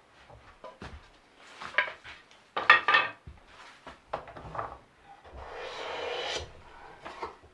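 Hand tools working wood: a few knocks and short scrapes, then a longer scraping stroke about two thirds of the way in.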